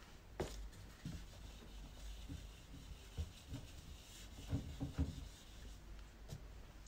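Faint rubbing of a sponge eraser wiping marker off a whiteboard, with a click about half a second in and a few light knocks.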